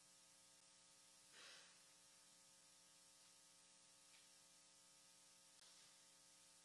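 Near silence during silent prayer: a steady faint electrical hum, with a brief soft noise about a second and a half in.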